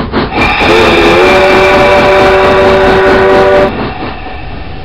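Steam sound of an HO-scale N&W J-class 4-8-4 model locomotive: a chime whistle of several notes blown for about three seconds, bending up slightly as it opens and cutting off sharply, over the locomotive's chuffing.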